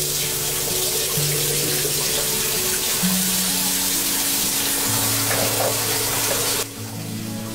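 Bathroom sink tap running, water pouring into the basin, over background music of held notes. The running water stops about six and a half seconds in.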